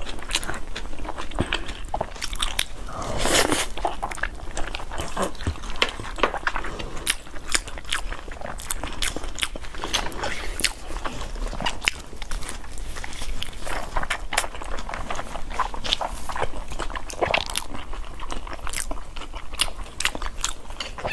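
Close-miked eating of braised meat and rice: chewing and biting with many quick, irregular wet clicks and smacks.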